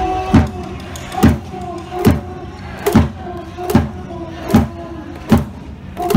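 A big cheering-section drum beaten in a steady slow rhythm, about one beat every 0.8 seconds. Each beat drops in pitch as it booms out, with voices held between the beats.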